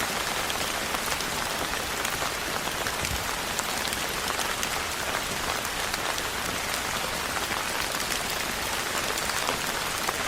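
Steady rain falling on a rooftop: a dense, even hiss of rain with many separate drop ticks.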